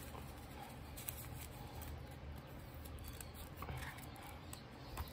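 Clear plastic binder envelopes and paper bills rustling and crinkling as the pages of a cash budget binder are turned, with a few light clicks.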